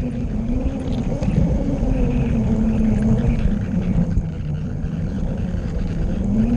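LEGO train's electric motor whining as it runs, its pitch slowly rising and falling as the speed changes, over the rumble of the wheels rolling along plastic LEGO track, heard from a camera riding on the train.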